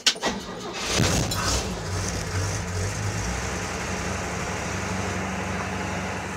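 1957 Chevrolet pickup's original straight-six engine catching right at the start, revving briefly about a second in, then settling into a steady idle. It is an easy start.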